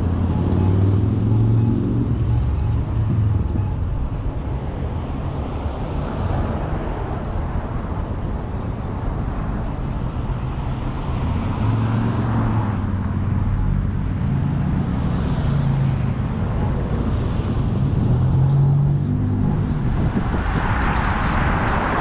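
Car engine and road noise from driving along a city street, a steady low rumble whose engine pitch shifts a few times, with a louder rush of tyre and traffic noise near the end.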